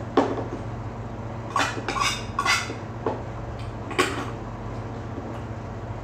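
Tableware clattering: about six sharp clinks and knocks of utensils against a metal pan and dishes, spread over the first four seconds, over a steady low hum.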